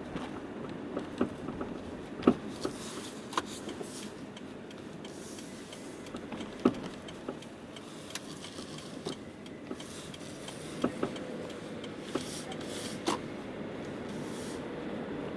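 Irregular sharp knocks and clicks from a car's shock absorber over steady road noise while driving, the abnormal noise of a faulty shock absorber. The two loudest knocks come about two seconds in and about seven seconds in.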